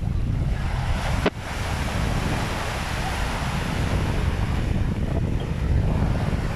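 Wind buffeting the microphone in a low rumble over small waves breaking and washing up a sandy beach, with a short dropout in the sound about a second in.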